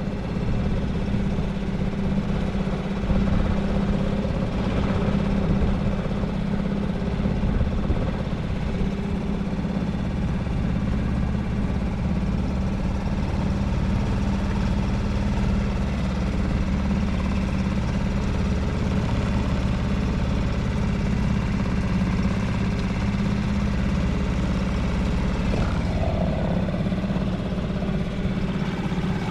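Boat's outboard motor running steadily at an even speed.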